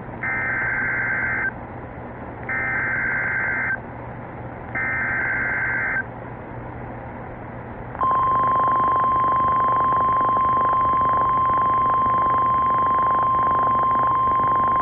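NOAA Weather Radio Emergency Alert System signal: three short bursts of warbling SAME header data about a second apart, then about eight seconds in the steady 1050 Hz warning alarm tone starts. The alarm tone marks a warning about to be broadcast, here a severe thunderstorm warning.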